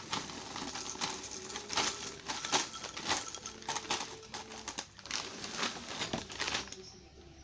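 Dry cinnamon cereal squares poured from a plastic bag into a ceramic bowl: a run of quick rattling clatters with crinkling of the bag, stopping about six and a half seconds in.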